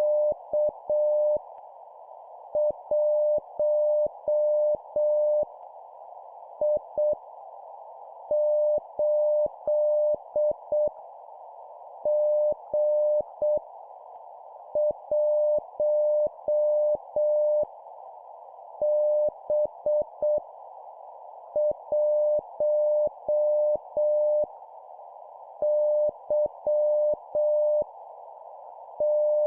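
Morse code (CW) tone of about 600 Hz keyed at 7 words per minute, sending random letters and numbers as short dits and longer dahs with pauses between characters. It sits over a steady band of filtered hiss like a receiver's passband noise, with a faint click as each tone starts and stops.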